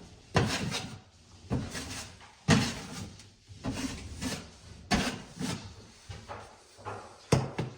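A wide drywall knife scraping joint compound (drywall mud) across a wall patch, in a series of short strokes, roughly one a second.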